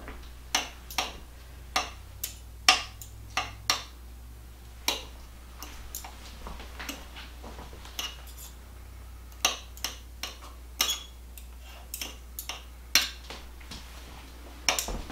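A metal fork and spoon clinking and scraping against a ceramic slow-cooker crock in irregular sharp taps, about one or two a second, as cooked chicken breasts are shredded in gravy. A low steady hum runs underneath.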